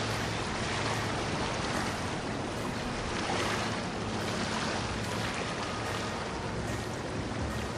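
Motor yacht cruising past: a steady low engine hum under the rushing wash of water from its hull.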